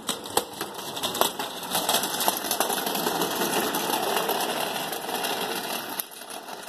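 Small caster wheels of a mechanic's creeper rolling and rattling over concrete under a rider, with a few sharp clicks in the first two seconds as they cross the slab joints; the rolling noise fades about six seconds in as it slows.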